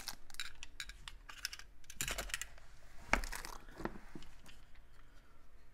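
Hard plastic pistol case being handled: magazines lifted out and the case shut and slid across the table, a run of clicks and light knocks with a sharper knock about three seconds in.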